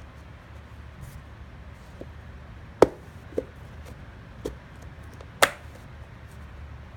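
Snap-lock latches of a plastic food-container lid clicking shut as the lid is clamped over a sheet of paper towel: four sharp snaps over about two and a half seconds, the first and last loudest.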